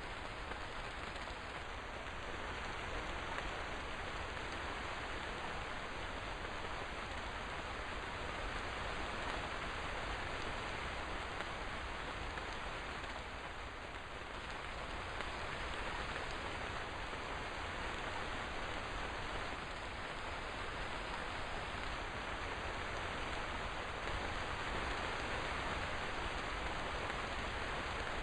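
Steady rain falling: an even rush of noise with no single drops or thunder standing out.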